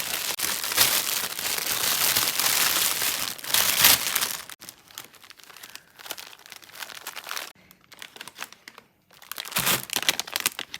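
Candy wrapper being unwrapped, crinkling and crackling. The crinkling is loud and continuous for the first four seconds or so, then thins to quieter scattered crackles, breaks off briefly, and starts again near the end.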